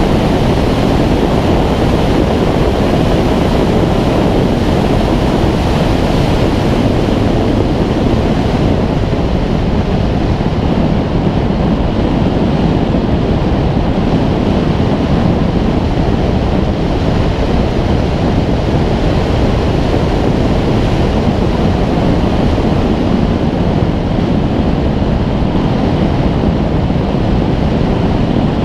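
Steady rush of airflow buffeting a wing-mounted camera on a Schweizer 2-33 glider in flight, with no engine sound; the hiss turns a little duller after about eight seconds.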